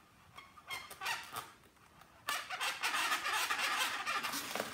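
Marker tip squeaking and scratching across an inflated latex balloon while drawing: a few short squeaks in the first second or so, then steady scratchy squeaking from about two seconds in.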